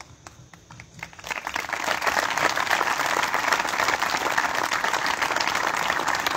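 A crowd of people clapping. It starts with a few scattered claps and swells into full, steady applause after about a second.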